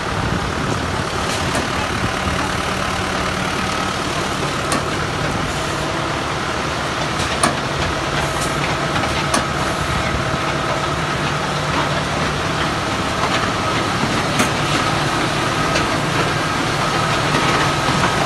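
FABO MiniMix-30 mobile concrete batching plant running: a steady machine hum with a thin high whine on top, and a few sharp clanks.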